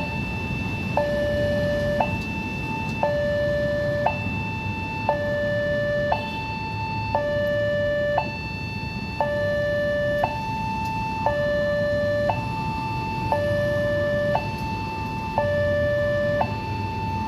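Railway level-crossing warning alarm from the loudspeaker on the crossing signal post: an electronic two-tone signal that swaps between a higher and a lower tone about once a second, with a small click at each change. It is the warning that a train is approaching and the crossing is closed.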